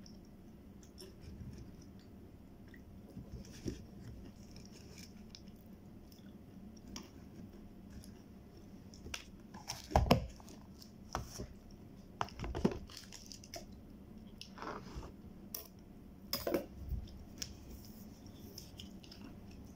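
Quiet mouth sounds of eating ice cream, with smacking and licking of fingers. A few sharp knocks and handling noises close to the microphone, loudest about halfway through.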